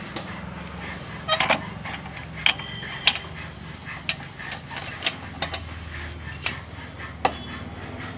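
Maruti Suzuki WagonR running with a steady low hum, with irregular sharp metallic clicks and knocks, a cluster about a second in and single ones after: the noise put down to a worn flywheel bearing.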